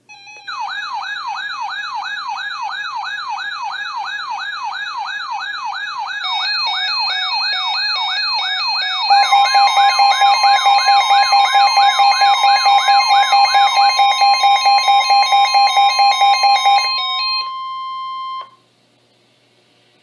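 Several weather alert radios sounding their warning alarms. A fast, repeating warbling siren is joined by a second device's beeping about six seconds in, then by rapid pulsing beeps and the steady single-pitch NOAA Weather Radio warning alarm tone. The warble stops about two-thirds of the way through, the pulsing beeps a few seconds later, and the steady tone cuts off alone near the end.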